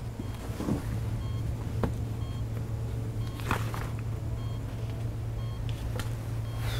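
Hospital patient monitor beeping, short high beeps about once a second, over a steady low hum, with a few soft knocks and rustles.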